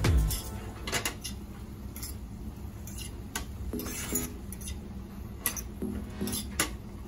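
A utensil clinking and knocking against a stainless steel skillet as sliced cremini mushrooms are stirred in it, in short irregular taps about one or two a second.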